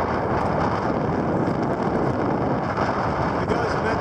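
Steady wind rushing over the microphone of a camera riding on a bicycle speeding downhill.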